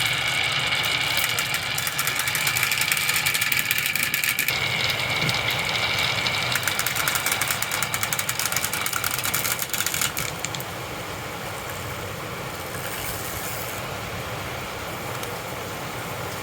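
Marbles rolling along a marble run track, a steady rolling rumble with dense rapid clicking and clattering, which drops to a quieter steady rolling about ten seconds in.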